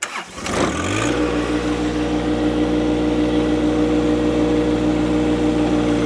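Stock John Deere 1025R compact tractor's three-cylinder diesel engine, after a click, climbing in pitch over about the first second, then running steadily at high revs, set to about 2,500 RPM for backhoe work.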